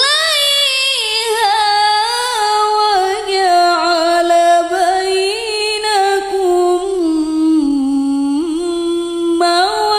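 A woman reciting the Qur'an in the melodic tilawah style. She holds one long phrase whose pitch wavers through ornamented turns, dips lower near the end, then rises into a new note.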